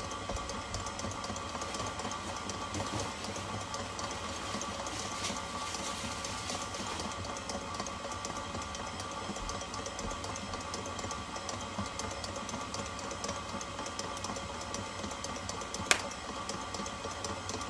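Electric stand mixer running steadily as it mixes bread dough, with a constant motor hum. A single sharp click near the end.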